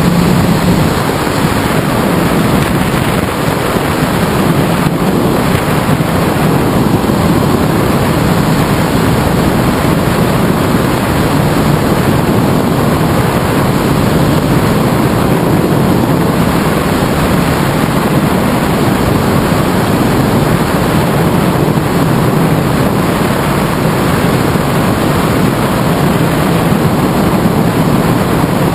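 Steady, loud rush of wind buffeting the microphone of a wing-mounted GoPro as a tandem hang glider flies through the air.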